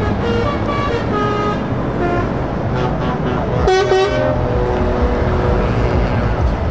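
Heavy trucks' diesel engines running as they drive slowly past. A loud horn blast comes a little under four seconds in, with a few shorter, higher toots in the first two seconds.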